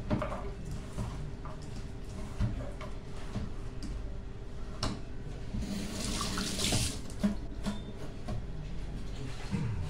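Kitchen tap run briefly into a stainless-steel sink, a hiss of water lasting just over a second about six seconds in, among scattered light knocks of kitchen utensils over a steady hum.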